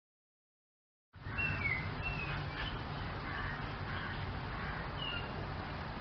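Silence for about a second, then outdoor ambience: a few short bird chirps over a steady low rumble and hiss.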